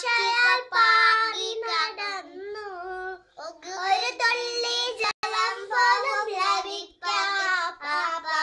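Two young children, a girl and a small boy, singing a Malayalam song together. A short click comes about five seconds in.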